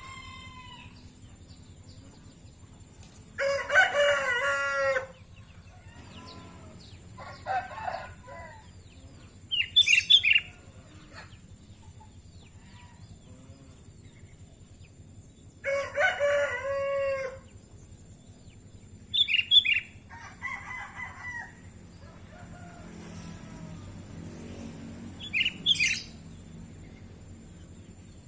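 Roosters crowing, with two loud crows about 4 and 16 seconds in and fainter ones between, mixed with short bursts of sharp chirps from a small songbird. A steady high-pitched tone runs underneath.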